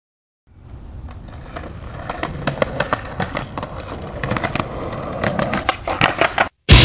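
Skateboard rolling on pavement: a rough steady rumble with many clicks and knocks that grow busier. Near the end a sharp, loud clack of the board.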